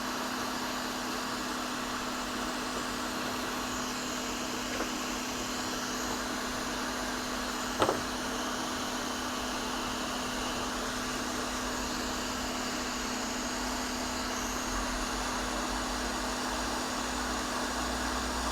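Hot air rework station blowing steadily at about 400 degrees, heating around a phone's charging port to loosen its solder, with a low steady hum; one sharp click about eight seconds in.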